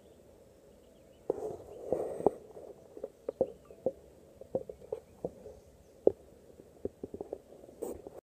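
Handling noise from an iPhone held by hand in a binocular adapter: irregular soft knocks and rubs that start about a second in, two of them louder.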